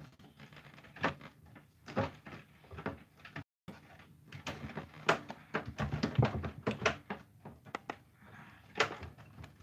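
Screwdriver and hands working a screw out of an old TV's cabinet: irregular clicks and knocks, busiest about halfway through.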